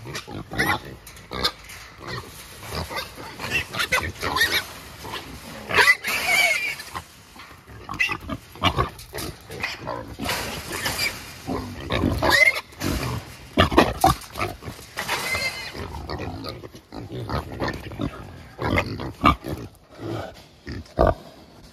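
Agitated wild hogs in a trap grunting and squealing, with several sharp, high squeals, the loudest about six and twelve seconds in.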